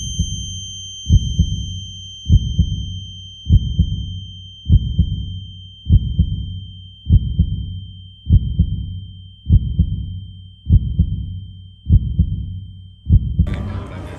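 Heartbeat sound effect: slow, regular double thuds, about one beat every 1.2 seconds. A steady high ringing tone runs under it and stops near the end, where a noisier sound comes in.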